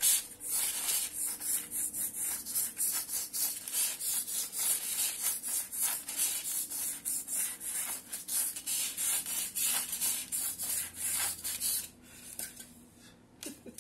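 Wide nail file sanding the edge of a styrofoam disc in quick, repeated back-and-forth strokes. The strokes stop about two seconds before the end.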